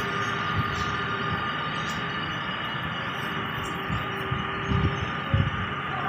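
Strong wind buffeting the microphone in low rumbling gusts, strongest near the end, over a steady background hum.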